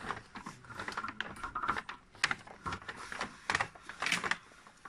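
Irregular light clicks and short rustles as hands handle a stretched steel coil spring and the plastic carrier bag hanging from its hook.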